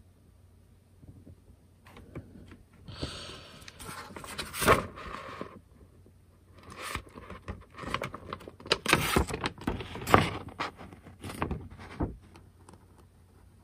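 A large paper painting-and-marking instruction sheet rustling and crinkling as it is handled and unfolded, in two bouts of crackly rustling that die away near the end.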